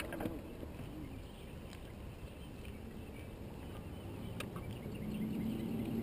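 Low rumble of open-air background on the water with one sharp click about four seconds in; near the end a steady motor hum comes up and grows, a boat engine out on the lake.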